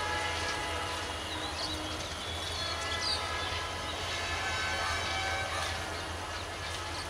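Diesel-electric locomotive of a Bangladesh Railway 2900 class running with a steady low rumble, with held tones higher up and a few short high chirps over it.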